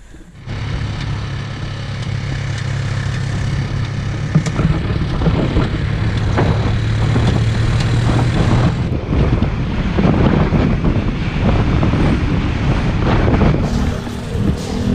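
A vehicle engine running steadily while moving, with wind rushing over the microphone.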